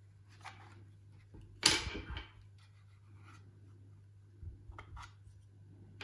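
Hands handling a Meross smart Wi-Fi switch: one sharp click a little under two seconds in, with a few faint handling noises before and after, over a faint steady low hum.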